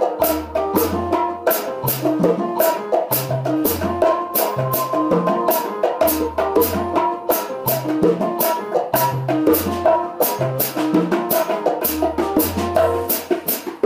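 Drum kit and bongos playing an Afro-Cuban groove together: evenly spaced cymbal strokes, about three or four a second, over kick-drum hits, with the short, pitched slaps and tones of hand-played bongos.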